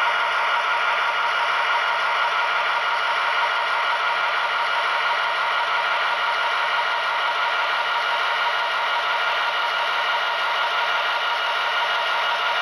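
An HO-scale SD60M's Tsunami 2 sound decoder plays an EMD 16-710 diesel prime mover running steadily through the model's small onboard speaker as the locomotive rolls slowly along the track.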